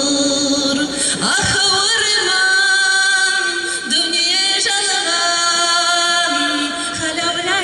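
A woman singing a Kazakh folk song, drawing out long held notes with vibrato over a musical accompaniment.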